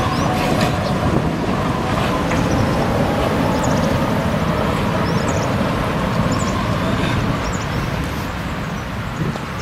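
Street traffic: cars and vans running past with a tram moving away, a steady rumble of engines and tyres that fades a little near the end. A few short high chirps sound over it.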